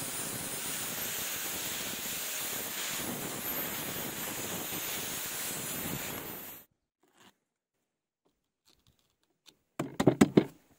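125 mm angle grinder with an abrasive disc grinding the steel top of a railroad-rail anvil: a steady grinding hiss with a faint high whine, which cuts off suddenly about two-thirds of the way through. Near the end, a short cluster of loud handling noises as a hand works a sanding disc on the grinder's backing pad.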